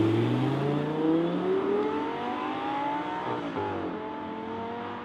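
Audi R8 GT's 5.2-litre V10 accelerating hard away, its note rising through a gear, with an upshift about three and a half seconds in, after which it pulls on in the next gear and fades as the car moves off.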